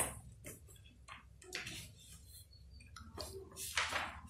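Pages of a paper book being turned and handled: several short rustles, the loudest near the end.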